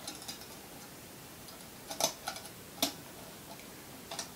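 A handful of small, sharp metallic clicks and taps as wire leads are fastened to the spring terminals of a 6-volt lantern battery, the clearest about two and three seconds in.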